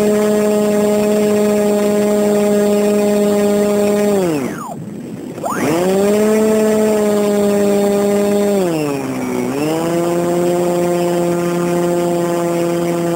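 Zagi flying wing's motor and propeller running with a loud, steady buzzing whine. About four seconds in the throttle is cut and the pitch sinks away to nothing, then it spins back up. About nine seconds in it dips again and settles at a slightly lower pitch.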